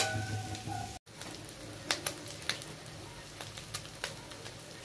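A few sharp clicks and knocks of kitchen utensils over a faint steady hiss, after a brief high held tone in the first second.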